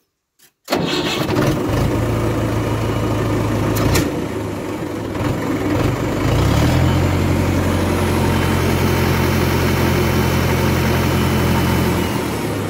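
Mahindra 575 DI tractor's four-cylinder diesel engine starting about a second in and idling. Around halfway it is sped up with the foot throttle and held at a steady higher speed, about 1200 RPM, then eases back near the end.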